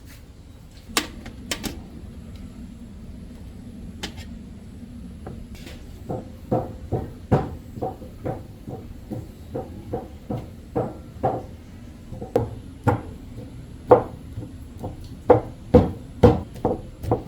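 Cooked cassava being pounded, a steady run of hollow knocks about two a second that sets in about six seconds in, after a couple of sharp clicks near the start.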